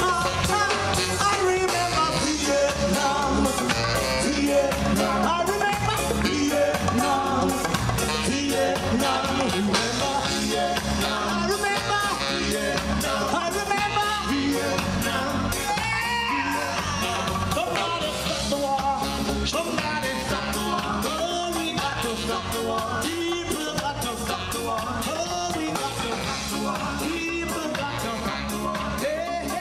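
Upbeat song with a singing voice and a steady beat, getting slowly quieter toward the end.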